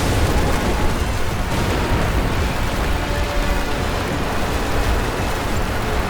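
Loud, steady low rumble of a storm sound effect, with music underneath.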